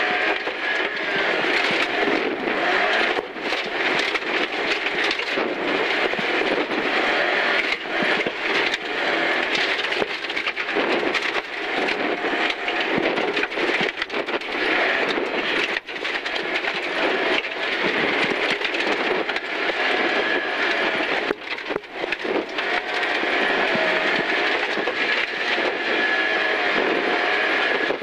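Rally car driven flat out on a gravel stage, heard from inside the stripped cabin: the engine revs up and drops repeatedly through gear changes, over a constant rush of tyre and road noise with many short knocks and rattles from the car going over the rough surface.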